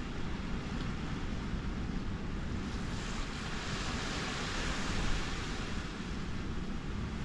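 Wind rumbling on the microphone over small waves washing onto a sandy beach, a steady, even noise.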